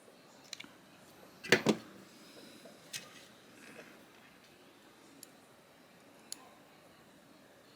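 Small hard clicks and taps of a Torx driver and folding-knife parts handled while the knife's body screws are put in. The loudest is a sharp double knock about one and a half seconds in, then a click near three seconds and a few fainter ticks.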